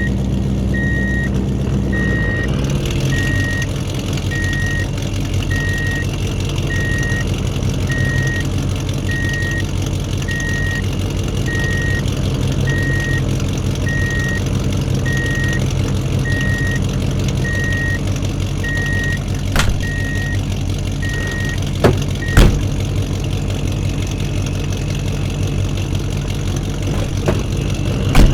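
Truck engine idling steadily under a reversing alarm beeping at an even pace, about four beeps every three seconds. The beeping stops a little past two-thirds of the way through. A few sharp clicks or knocks follow.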